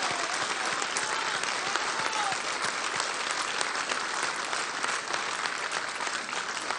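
Crowd applauding steadily, a dense patter of many hands clapping, with a few faint calls from the crowd in the first two seconds.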